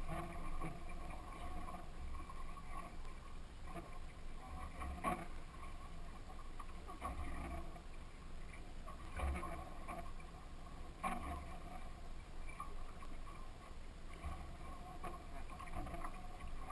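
Steady low rumble and hum aboard a small outboard-powered fishing boat, with a few sharp knocks about five, nine and eleven seconds in.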